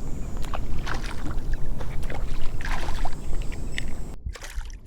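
Shallow water sloshing and splashing around a wading angler's legs, with a steady low rumble and many short splashes. The high, hissy part of the sound drops away abruptly near the end.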